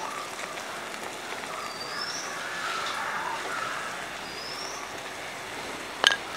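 Pot of sambar boiling on a gas stove, a steady hiss, while a bird repeats a short rising whistle every two to three seconds. A sharp click comes near the end.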